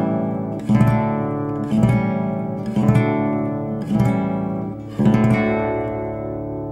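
Acoustic guitar music: chords strummed about once a second, the last one left to ring out near the end.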